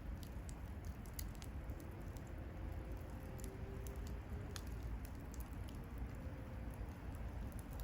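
Wood bonfire crackling: irregular sharp pops and snaps over a steady low rumble.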